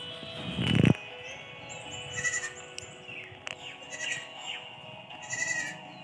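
Goats bleating several times over background music, the loudest call just under a second in, then three shorter ones.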